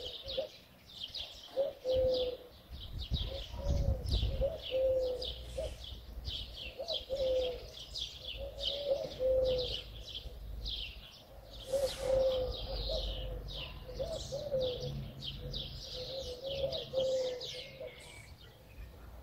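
Birdsong: a dove cooing in short, repeated low notes, with many small birds chirping quickly and continuously high above it.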